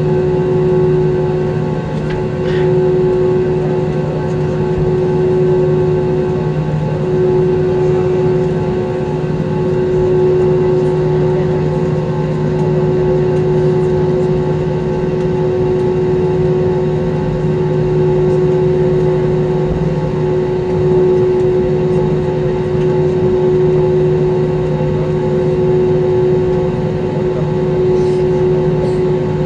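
Steady cabin noise inside an Airbus A320 airliner taxiing on the ground: the jet engines at taxi idle and the cabin air system make a continuous hum with two held tones, one low and one mid-pitched.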